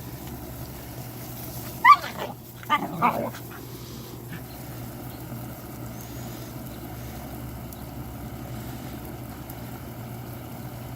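German shepherd puppies yipping while they play: one sharp yip about two seconds in and two or three more about a second later, over a steady low hum.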